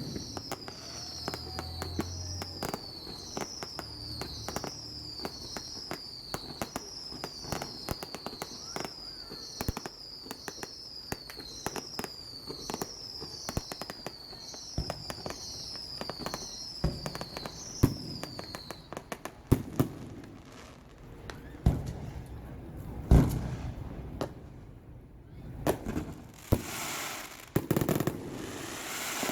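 Fireworks display: aerial shells crackling and popping almost continuously, with several heavier booms in the second half. A high falling chirp repeats about once a second over the crackle and stops about two-thirds of the way through.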